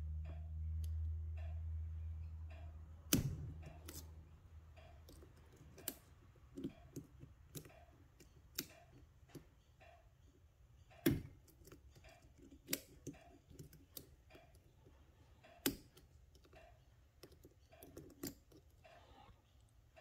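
A hook pick and tension wrench working the pins of an Assa 700 high-security lock cylinder: scattered faint metallic clicks and scrapes, with three sharper clicks spread through. A low hum lies under the first few seconds.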